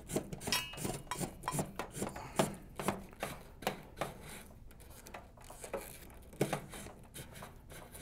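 SJ cable being pushed through a small connector on a mini split condenser's side panel: a string of light clicks, taps and rubbing, busiest in the first half, with one louder knock about six and a half seconds in.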